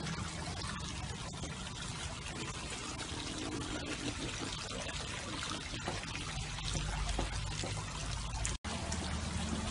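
Steady running, splashing water from the pool, continuous throughout, with an instant where the sound cuts out completely near the end.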